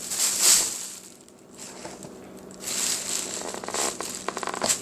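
Crunching, crackly handling noise from the exploded microwaved egg and its shell, in a burst at the start and again through the second half.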